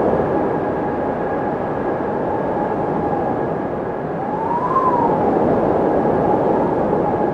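Windmill turning in the wind: a steady rushing whir with a faint held tone, and a whine that rises and falls once about four to five seconds in.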